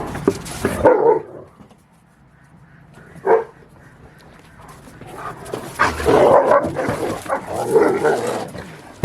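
Dogs barking in alarm, as if at someone they think is there: a few barks in the first second, a single bark about three seconds in, then a longer run of barking from about five and a half seconds to near the end.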